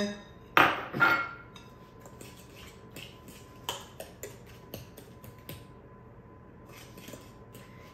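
Two ringing clinks on a glass mixing bowl as brown sugar goes in, then a metal fork clicking and scraping against the glass as it mixes the sugar into the wet batter and breaks up lumps.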